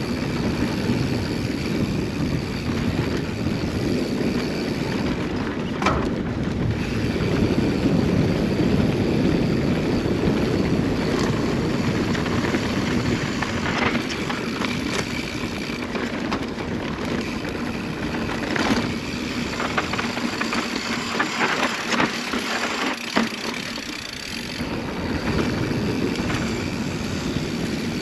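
Mountain bike descending a dirt singletrack at speed, heard from the bike-mounted GoPro: wind buffeting the microphone and the tyres rumbling over the dirt, with a few sharp knocks and rattles from bumps. The low rumble drops away for a few seconds about twenty seconds in, then returns.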